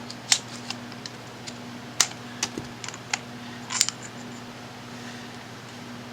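Irregular small clicks and taps of needle-nose pliers on metal as a screwed part inside an LED flashlight is turned out to take it apart, over a steady low hum.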